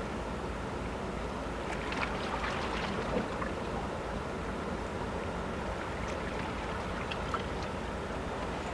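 Steady low rumble of the MV Coho car ferry's engines as she manoeuvres into the slip, with a few faint clicks and knocks about two to three seconds in.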